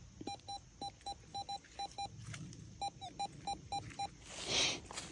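Metal detector giving a run of short, identical mid-pitched beeps, single and in quick pairs, as the coil is swept back and forth over a buried target. A short rustle follows near the end.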